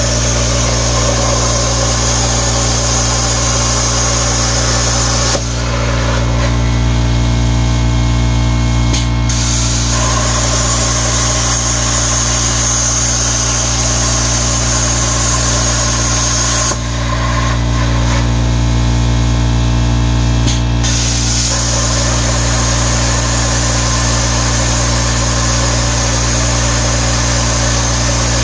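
CNC plasma cutter cutting metal plate: a steady hiss of the plasma arc over a constant low machine hum. The hiss drops out twice for about four seconds, about five seconds in and again about seventeen seconds in, leaving only the hum, then comes back sharply each time as the arc strikes again.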